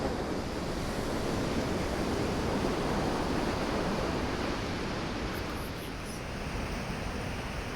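Ocean surf on a beach: a wave's rushing wash that swells over the first few seconds and then slowly eases off.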